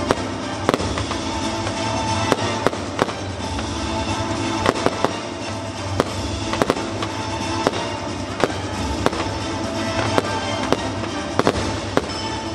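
Fireworks display: irregular sharp bangs, one or two a second, over steady music.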